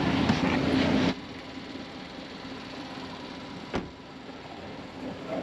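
Vehicle and engine noise for about a second, cutting off suddenly to a quiet background, with one sharp click a few seconds later.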